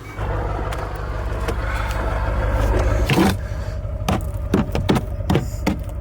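1996 Ford F350's 7.3 L Powerstroke V8 diesel idling just after a cold start, a steady low rumble that grows louder over the first three seconds. The rumble then drops away and a run of sharp knocks follows, about two a second.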